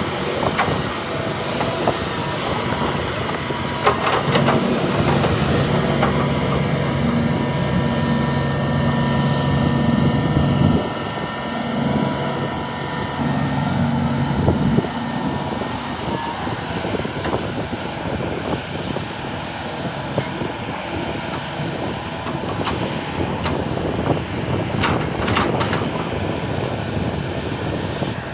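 Heavy diesel earthmoving machinery running at work, excavator and dump truck engines, as a steady dense din. A low engine drone stands out from about five to fifteen seconds in, dropping out briefly around eleven seconds, with a few sharp knocks.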